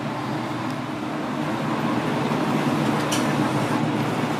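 Steady low hum with an even hiss over it, from the ventilation of a teppanyaki grill counter; it grows a little louder about two seconds in.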